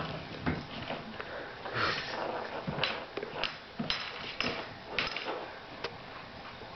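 Shih Tzu puppy snuffling and scrabbling about on a tile floor, with scattered sharp clicks and knocks.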